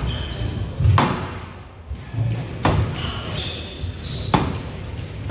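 Squash rally: about four sharp cracks of the ball off racket and walls, a second or more apart, with short squeaks of court shoes on the wooden floor in between.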